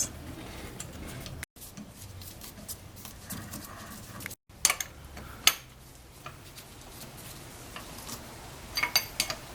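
Metal tools clinking and knocking during brake and wheel work: a couple of sharp knocks midway, then a cluster of clinks near the end that ring briefly.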